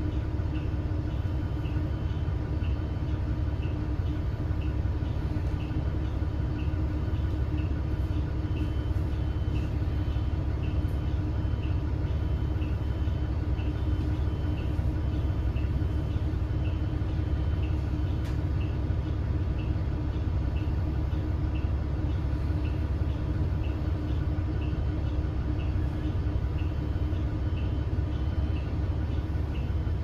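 New Flyer XDE40 diesel-electric hybrid bus running steadily, heard from inside the cabin: an even low rumble with a steady hum.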